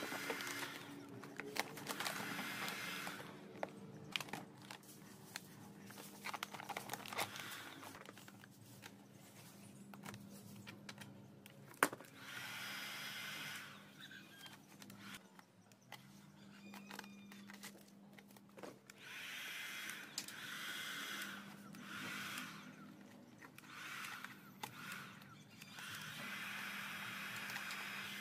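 Electric heat gun running with a steady hum, its whir swelling and fading several times, while matte black vinyl sticker film crinkles and crackles as it is stretched and smoothed by hand. One sharp click stands out about twelve seconds in.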